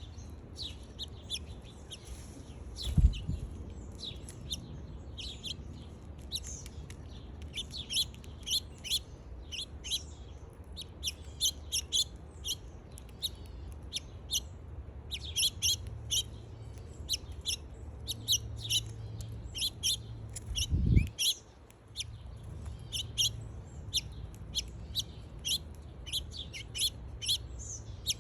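Small birds chirping over and over in short, high calls, with two dull low thumps, one about three seconds in and one about two-thirds of the way through.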